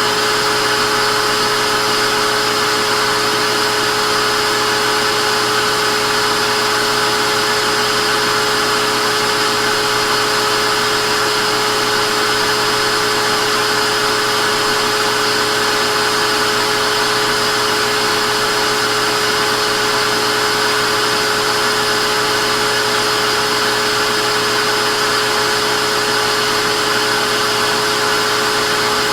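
Vacuum cleaner motor running steadily: a constant rushing whir with a steady hum, no change in pitch or level.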